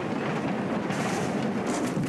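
A mass of small rubber superballs bouncing on a street, a dense steady patter of many overlapping impacts.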